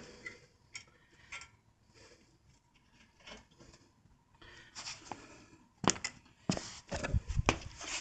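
Light metallic clicks and knocks of a lug nut being run onto a wheel stud by hand to hold a new brake rotor against the hub. The clicks are sparse at first and come thicker and louder in the second half.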